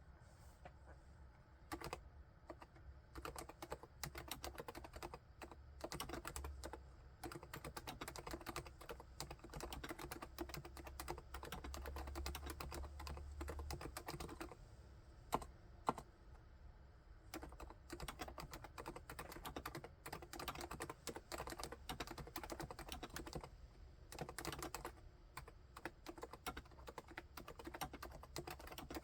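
Typing on a full-size Realforce XF11TS keyboard with silenced Topre capacitive switches and HiPro Renso keycaps: muted, fast keystrokes that start about two seconds in. Around the middle the typing pauses briefly, broken by two sharper, louder clacks.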